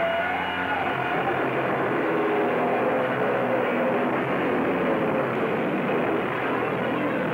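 Heavily distorted electric guitar and bass from a live punk-metal band, a loud, steady noise drone with held tones and a wavering, whining pitch near the start.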